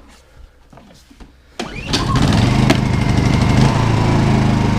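Honda EU2000i inverter generator's small four-stroke engine pull-started on the choke. After a few light clicks it catches about a second and a half in and settles into a steady run.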